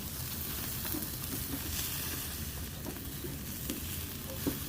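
Chicken leg quarters sizzling on a smoker's grate: a steady hiss with a few small clicks, one clearer near the end.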